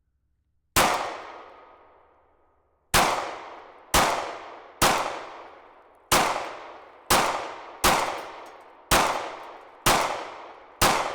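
Ten gunshots fired at a heat pump condenser's fan, each with a long ringing decay. The first shot stands alone; after a pause of about two seconds the other nine follow roughly a second apart. The shots are meant to spin the fan blades by hitting them.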